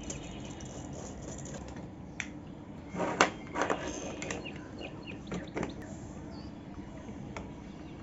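Sharp plastic clicks and knocks as a two-pin mains plug is handled and pushed into a socket board, the loudest cluster about three seconds in, with a few single clicks after it over a steady background hum.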